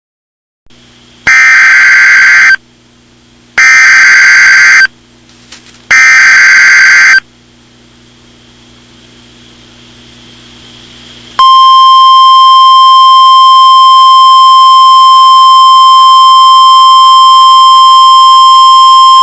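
Emergency Alert System signal: three harsh, screeching SAME data header bursts, about a second each with short gaps between them, then after a few seconds' pause the steady, shrill two-tone EAS attention signal begins and holds. It is the start of a new alert.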